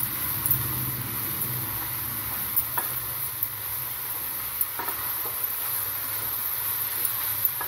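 Chopped cabbage, capsicum and paneer frying with a steady sizzle on high flame while a wooden spatula stirs them in a non-stick pan, with a few light knocks of the spatula against the pan.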